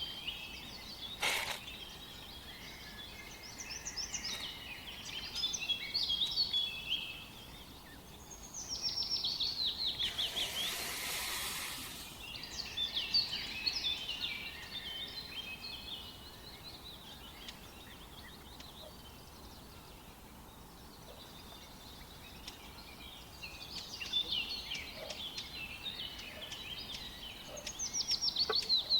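Birds chirping and calling again and again, with runs of quick falling notes. A sharp click comes about a second in, and a hiss lasts about two seconds around ten seconds in.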